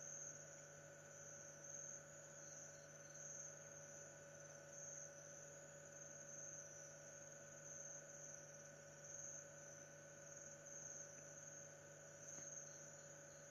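Faint steady chorus of night insects, a high shrill pulsing drone, over a steady low electrical hum.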